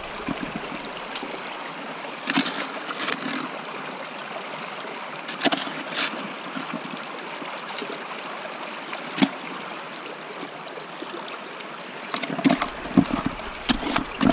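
Stream water rushing steadily over and through an aluminium gold sluice box, with scattered short knocks and scrapes of a small hand scoop against the bucket and sluice as gravel is fed in, a few more of them near the end.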